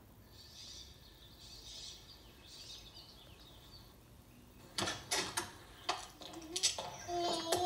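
A doorknob is turned, with several sharp clicks from about five seconds in, and then a door creaks open with a wavering squeak near the end. Before that there is only a faint hiss.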